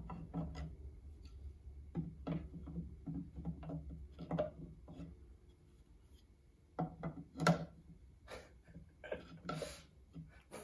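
Hard polystone statue parts knocking and scraping together as a loose piece is handled and pushed into the statue's base: irregular light taps and rubs, with the loudest knock about seven and a half seconds in and a longer scrape about two seconds later.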